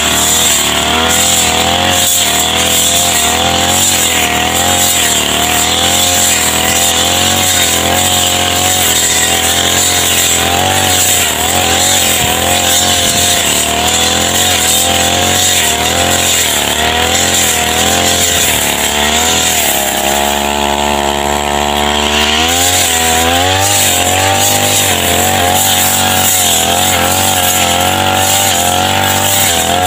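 Backpack brush cutter's small petrol engine running at high revs while cutting tall grass, its pitch wavering up and down with the throttle. About two-thirds of the way in it drops to a lower pitch for a couple of seconds, then revs back up.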